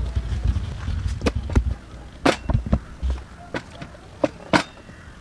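Irregular clicks and knocks of kitchen handling: cut passion fruit shells and utensils being worked against plastic bowls while the pulp is scooped out. Dull low thumps come during the first second and a half, and two sharper knocks stand out later.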